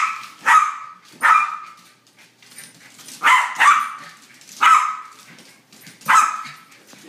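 Small terrier barking in sharp calls: three quick barks, a pause of about two seconds, then four more.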